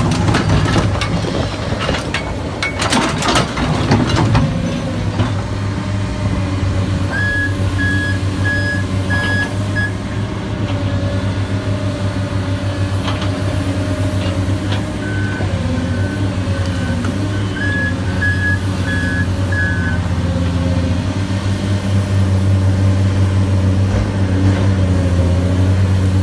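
Heavy diesel engine running steadily under a truck's reversing alarm, which beeps in two runs of short, evenly spaced beeps, a few seconds in and again midway. A cluster of sharp knocks and clatter comes in the first few seconds.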